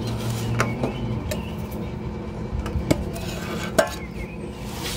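Metal clicks and scraping as a metal scraper pries the press-fit lid off a one-gallon metal can. There are a handful of sharp clicks, and the lid comes free near the end.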